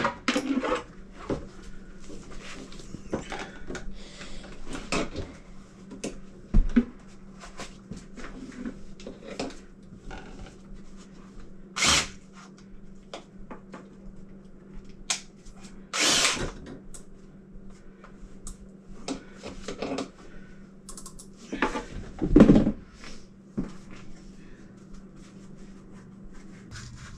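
Irregular clanks, knocks and scrapes of a steel drain-cleaning cable and hand tools being handled under a kitchen sink, with a few louder sharp rattles, over a steady low hum.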